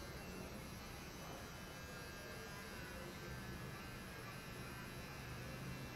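Electric clippers buzzing steadily as they shave a dog's coat.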